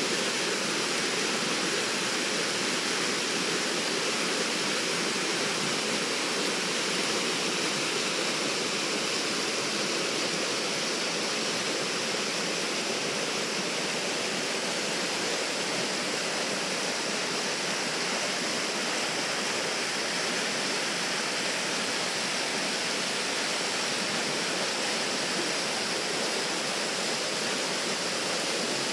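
River water rushing steadily over rocks, an even, unbroken roar of flowing water.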